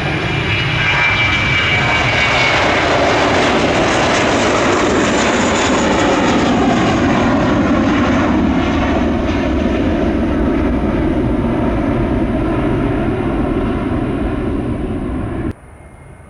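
Jet airliner engines at high power as the plane passes on the runway: a loud, steady roar with a high whine that fades over the first few seconds. The roar cuts off suddenly near the end, leaving a much quieter background.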